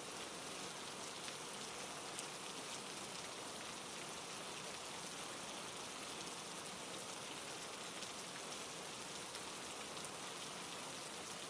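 Steady rain falling, an even hiss with faint scattered drop patter.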